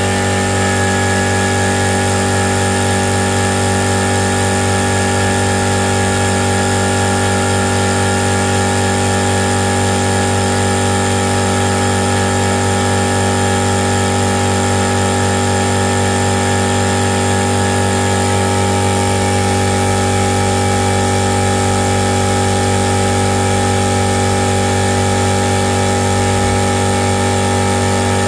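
Tagred TA3397 running steadily at a constant speed: an even, unchanging machine hum.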